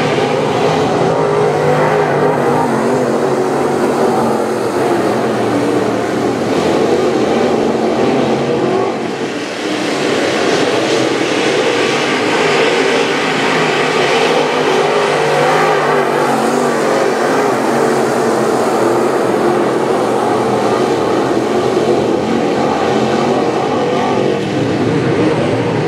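A pack of dirt late model race cars at speed on a dirt oval, several V8 engines running hard and overlapping in a loud, steady mass, with a brief dip about nine seconds in.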